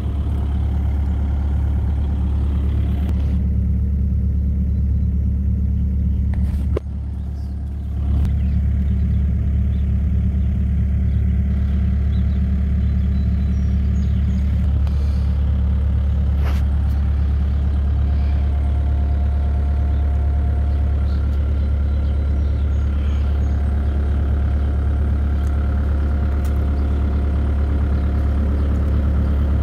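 2006 Bobcat 331G mini excavator's diesel engine running steadily at idle, heard close up, with a brief drop in level about seven seconds in.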